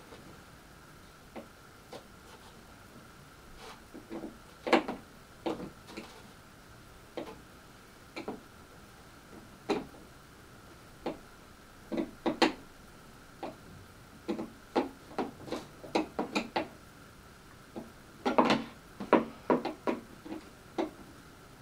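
Irregular clicks and knocks of metal and plastic parts and tools being handled while assembling a Stihl KombiSystem BF-KM cultivator attachment, scattered at first and coming in quick runs in the second half.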